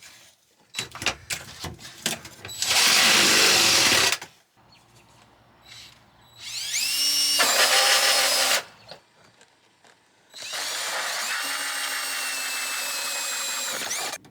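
Power drill running in three bursts after a few knocks. The second burst spins up in pitch, and the last holds steady before winding down near the end.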